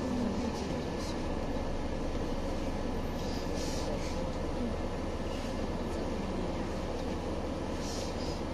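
Steady cabin noise inside a Scania OmniLink city bus: the engine's hum and running noise as the bus rolls slowly and nearly comes to a halt, with a couple of brief hisses.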